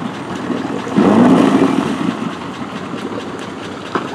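Yamaha outboard motor on a small aluminium boat running under load, growing louder for about a second from a second in, then settling back to a steady drone. A short click comes near the end.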